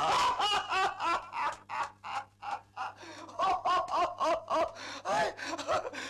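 A man laughing heartily in repeated bursts.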